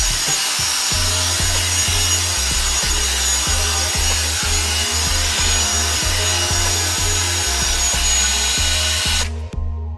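Revlon One Step hair dryer brush running with a steady rush of air, cut off suddenly near the end. Background music with a bass line plays underneath.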